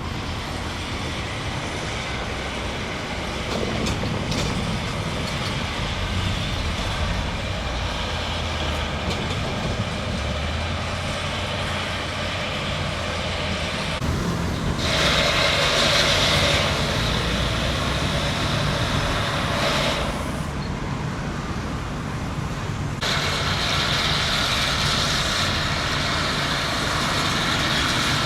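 Road traffic noise: steady vehicle rumble, with two louder, hissier stretches that start and stop abruptly.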